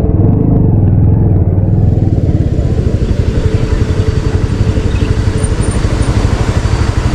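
Cruiser motorcycle engine idling, a loud, steady low pulse in a quick even rhythm.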